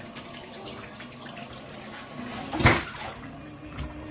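Tap water running steadily, pouring and splashing into a basin. A single sharp knock sounds about two and a half seconds in.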